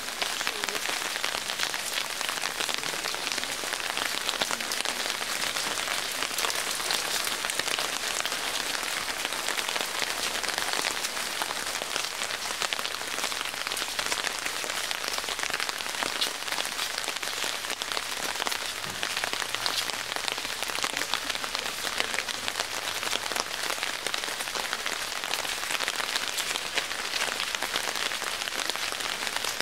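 Steady rain falling, a dense, even patter of drops.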